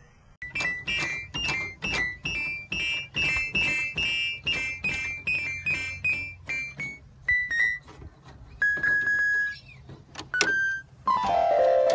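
Electronic keyboard being played by a horse pressing the keys with its muzzle: an irregular, quick run of high notes for about six seconds, then a few scattered notes. A different, lower steady sound cuts in near the end.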